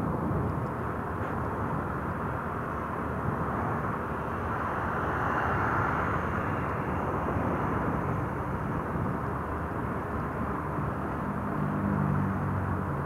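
Motorcycle on the move: a steady rush of wind on the microphone over the engine's drone, with the engine note coming through more clearly near the end.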